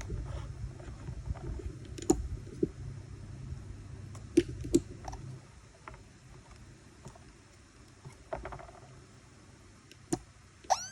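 Scattered sharp clicks and knocks over a low rumble, then near the end an electronic tone that sweeps quickly up in pitch and settles into a steady high beep.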